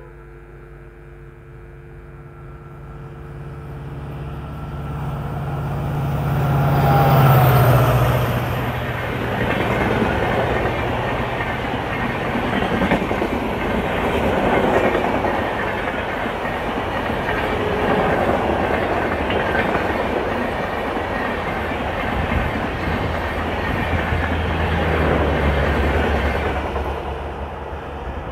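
An EMD WDP4D diesel locomotive's 16-cylinder two-stroke engine grows louder as it approaches and peaks about seven seconds in, its drone dropping in pitch as it passes. A long rake of LHB coaches follows at about 110 km/h, with a steady rushing rumble and clickety-clack of the wheels, which fades near the end as the train recedes.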